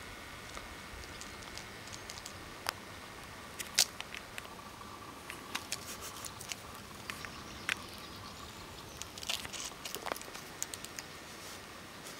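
Scattered light taps and clicks, irregular and a few seconds apart, from a kitten pouncing on and batting a string toy on concrete, over a steady faint hiss.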